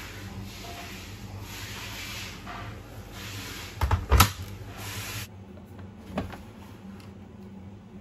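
Towels rustling as they are pushed into a front-loading washing machine drum, then the AEG Lavamat 76850's porthole door shut with two loud knocks close together about four seconds in as it latches. A softer single click follows about two seconds later.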